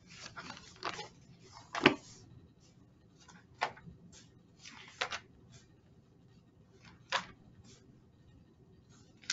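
Small handling noises: four sharp clicks, one every second or two, the loudest about two seconds in, among soft brief rustles.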